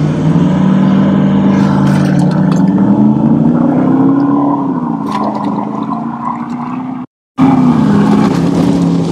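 V8 trucks accelerating hard in a short grass drag sprint. The engine note climbs in pitch for about four seconds, falls back about four and a half seconds in, and after a brief sudden cut comes back loud again.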